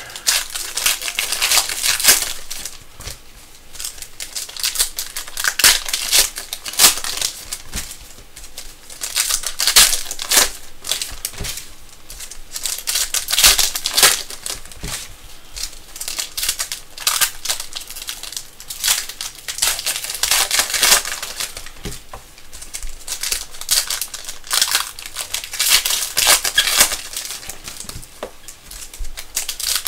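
Foil trading-card pack wrappers being torn open and crinkled by hand: a dense, irregular crackling with louder rustles every couple of seconds.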